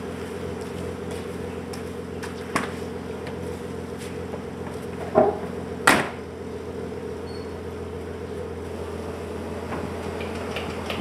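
Nissan SR20DET turbocharged four-cylinder idling steadily in a Datsun Stanza, with a couple of sharp knocks about five and six seconds in as the driver's door is shut.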